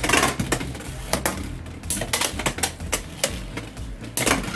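Two Beyblade X spinning tops, Black Shell and Hells Scythe, colliding again and again in the stadium: a rapid, irregular run of sharp clacking hits. Background music plays underneath.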